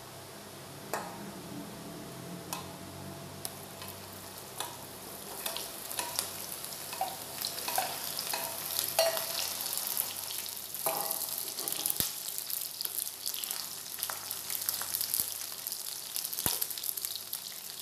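Cut okra sizzling in hot mustard oil in a kadai as it is tipped in and stirred with a wooden spatula. The frying hiss builds after a few seconds and grows stronger toward the middle, with scattered light knocks and clinks.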